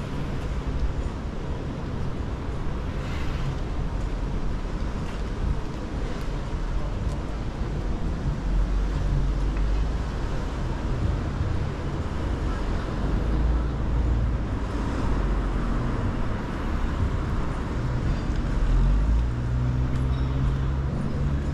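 City street traffic: vehicles running and passing, a steady low rumble with one swell about two-thirds of the way through.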